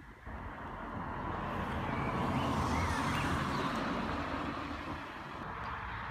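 A road vehicle passing. Its noise comes in just after the start, is loudest about two to four seconds in, and eases off a little toward the end.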